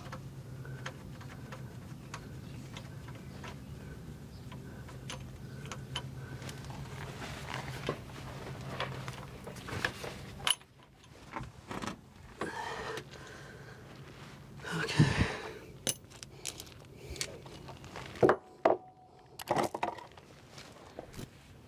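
Scattered metallic clinks and knocks of a heavy truck driveshaft's U-joint, clamps and bolts being handled and fitted at the transmission yoke, with one louder knock past the middle. A steady low hum runs underneath for the first half and stops suddenly about ten seconds in.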